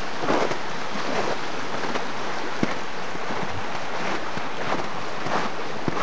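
Small woodland brook running over stones: a steady rush of water with brief gurgles and splashes scattered through it.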